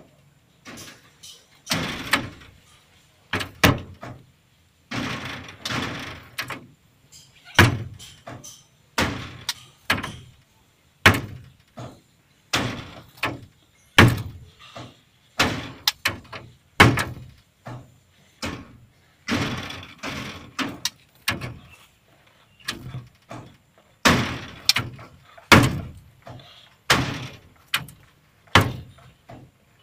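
An irregular run of sharp knocks and bangs, about one or two a second, each dying away quickly.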